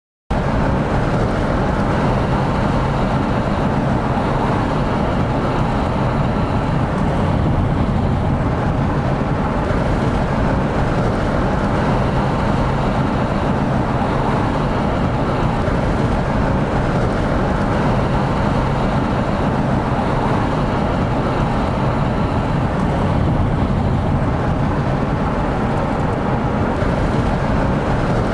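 Steady road noise of a moving car heard from inside the cabin: engine and tyres on the pavement, mostly a low rumble with no change in pace.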